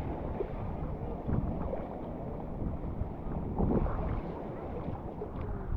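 Ocean surf and wind on the microphone: a steady, mostly low rushing noise.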